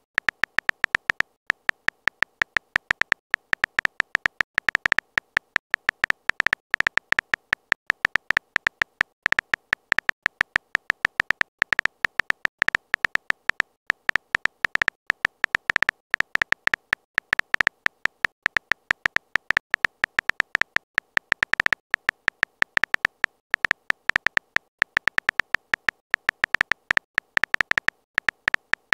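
Phone keyboard typing sound effect: a rapid, irregular stream of short clicks, several a second, each with a slight high tone, as a message is typed out letter by letter.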